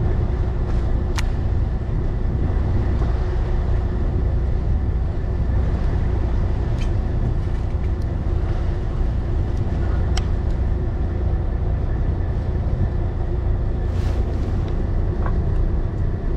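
Fishing boat's engine running steadily, a constant low hum, with a few faint clicks over it.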